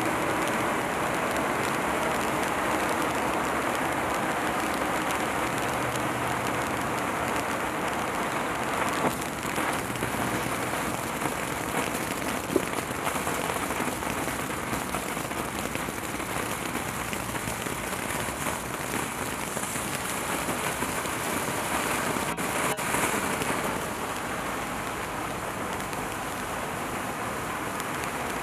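Black Cat Illuminati fountain firework burning with a steady hiss as it sprays sparks, with a few sharp pops along the way.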